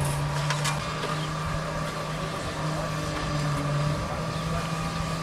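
Concrete mixer's engine running with a steady drone.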